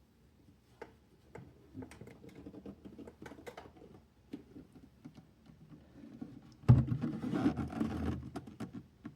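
Wooden sewing-machine casket being handled: scattered light clicks and taps, then a sudden louder stretch of rubbing and knocking about two-thirds of the way through.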